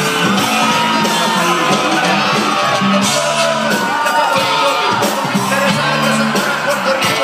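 A live band playing loud music with drums, bass and guitars, heard from inside the audience, with the crowd shouting and cheering along.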